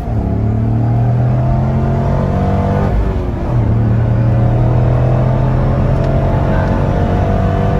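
Chevrolet Corvette V8 heard from inside the cabin, pulling under acceleration. There is a gear change near the start and another about three seconds in, and the engine note climbs slowly after each.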